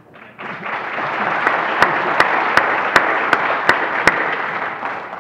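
Audience applause, starting about half a second in and fading near the end, with a run of sharper, closer hand claps standing out, about three a second.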